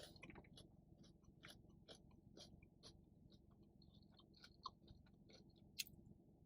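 Quiet, close-up chewing of takeout Chinese food: irregular soft mouth clicks and smacks, with one sharper click about six seconds in.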